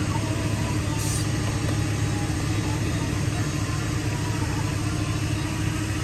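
Steady street-traffic din of vehicle engines running and idling, with a low hum throughout and a brief high tick about a second in.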